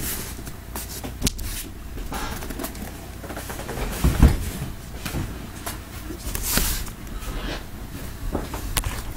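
Sealed cardboard shipping cases being handled: lifted off a stack, carried and set down, with cardboard rubbing and scraping and scattered knocks, the loudest a thump about four seconds in.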